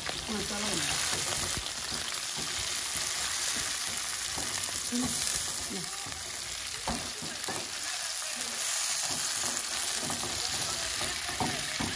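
Sliced onions, peppers and greens sizzling steadily in hot oil in a wok while being stir-fried with a silicone spatula, which scrapes and taps the pan now and then.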